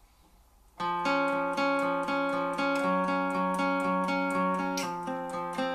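Fender acoustic guitar starting a song intro about a second in, playing a steady rhythmic pattern of ringing notes, about four a second.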